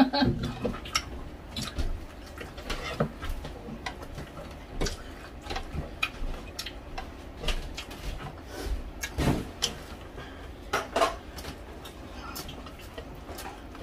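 Close-up eating sounds: chewing and mouth clicks, with irregular light clinks of plates and tableware as food is picked up by hand. A few louder clicks stand out in the second half.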